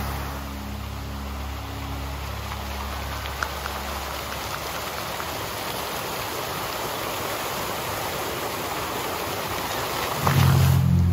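Jets of a large performance fountain spraying and falling back into the pool: a steady splashing hiss of water. Low held notes of the show's music fade out in the first few seconds, and louder music with low notes comes back in near the end.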